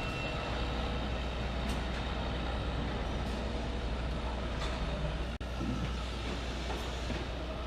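Steady machinery noise with a constant low hum, typical of a factory floor; it drops out for an instant about five seconds in.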